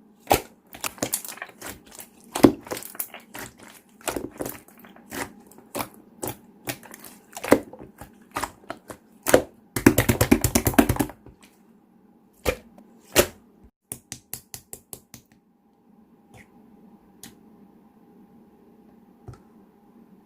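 Clear slime being squeezed and pressed by hand, making sharp clicks and pops as trapped air is squeezed out, with a fast run of pops about ten seconds in. The clicks thin out about three-quarters through and stop, leaving a faint hum.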